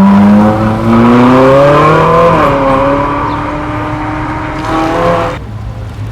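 A loud car engine accelerating hard away: the revs climb, drop sharply at a gear change about two and a half seconds in, then climb again more slowly before the sound cuts off suddenly near the end.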